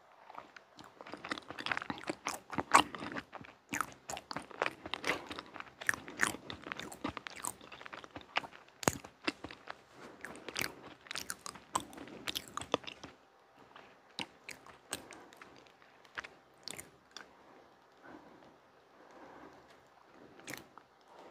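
Close-miked chewing of soft chocolate layer cake: many quick wet mouth clicks and smacks, busiest for the first half and thinning out about thirteen seconds in.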